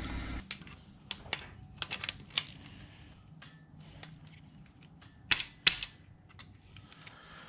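Sharp metallic clicks and taps of a lever-type valve spring compressor and valve-train parts being worked on a 4.3L Vortec V6 cylinder head, as the springs are compressed. A scattered run of clicks comes in the first two and a half seconds, then two louder snaps about five and a half seconds in.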